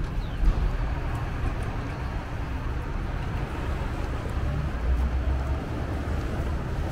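City street traffic: cars and trucks going past with a steady low rumble and road noise.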